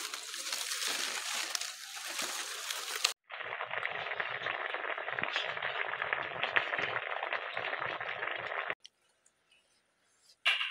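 A steady hiss of outdoor noise for about three seconds, cut off abruptly. Then sliced okra sizzles in a frying pan for about five seconds and stops suddenly. A single click near the end.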